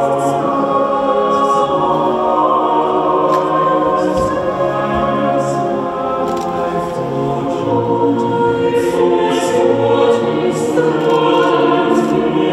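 A choir singing in long, held notes, filling the whole stretch without a break.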